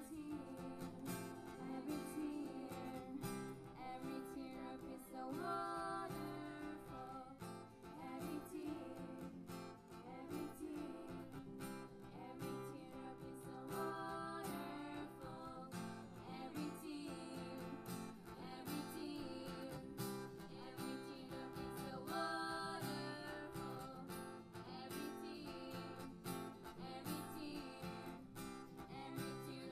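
Acoustic guitar strummed in a steady rhythm, with a melody line rising over it about every eight seconds.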